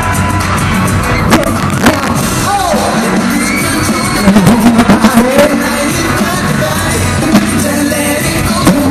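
Live pop music in a large hall: a singer over a loud band backing with a heavy, regular beat, with crowd shouting mixed in.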